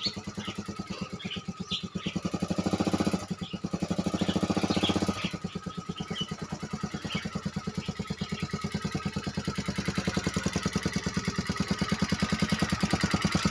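Homemade mini jeep powered by a Yamaha Jupiter MX 135 single-cylinder four-stroke motorcycle engine, running as it drives. The engine gets louder for a couple of seconds a few seconds in, then again near the end as the car comes close.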